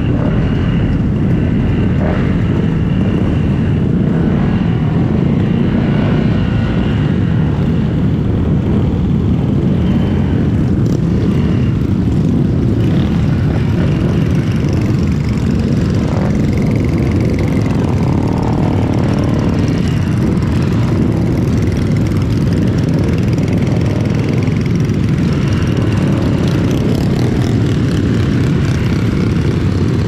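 Steady low rumble of wind buffeting the microphone, mixed with engine and road noise, as heard riding a Honda LEAD125 scooter.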